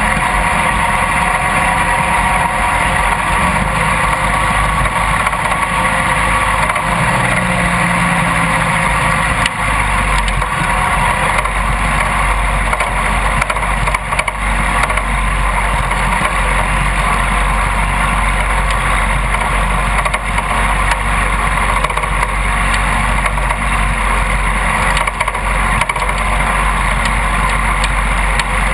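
Riding lawn mower's engine running steadily, heard close up from the front of the mower.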